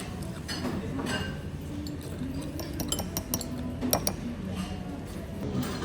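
Cutlery clinking against dishes, with several quick light clinks about three to four seconds in.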